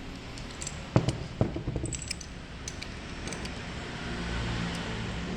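Small metal parts and tools clinking and knocking while a diesel injection pump is taken apart: one sharp knock about a second in, then a few lighter clicks. A steady low hum of background noise rises near the end.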